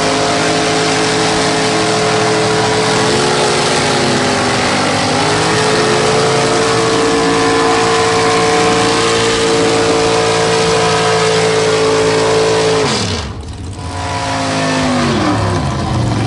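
Two mud truck engines held at high revs, straining against each other in a tug-of-war with tyres spinning, for about 13 seconds. Then the revs drop sharply as the pull ends, and a second engine winds down a couple of seconds later.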